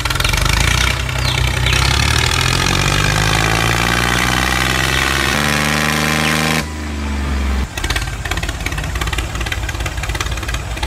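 A tractor engine running, its pitch sinking slowly; about six and a half seconds in it changes to a rougher, rattling run.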